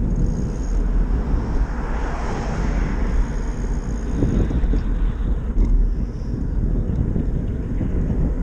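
Wind buffeting a moving microphone: a steady, ragged low rumble, with traffic noise swelling and fading about two to three seconds in.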